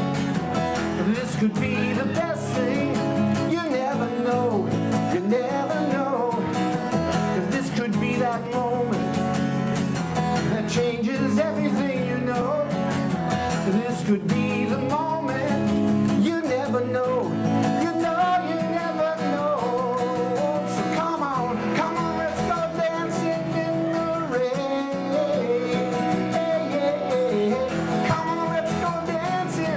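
A man singing his own song while playing an acoustic guitar, performed live.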